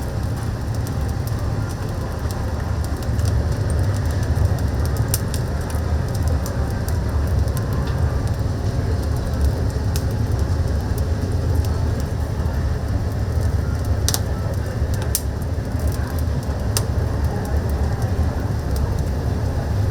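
Oak firewood fire crackling, with scattered sharp pops over a steady low rumble.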